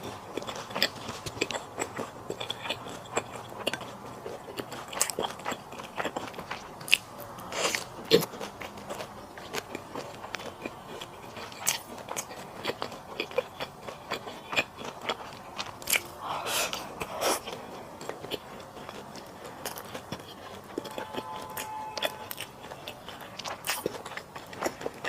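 Close-miked eating sounds: a person chewing and biting food with wet mouth clicks and smacks, and occasional sharper clicks.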